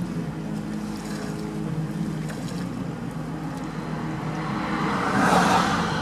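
A motor engine humming steadily, with a louder rush of noise swelling and fading near the end.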